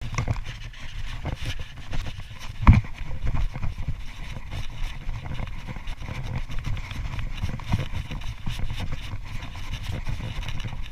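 Plastic kayak hull dragged over grass and dirt: a continuous rough scraping rumble with small knocks, and one louder thump about three seconds in.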